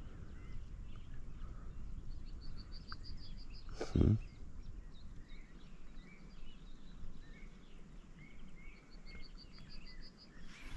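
A songbird trilling twice, each a rapid run of evenly spaced high notes lasting about a second and a half, over low steady outdoor noise. A short thump about four seconds in.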